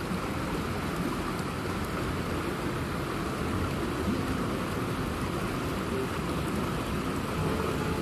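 Steady rush of a shallow river flowing fast over stones and small rapids.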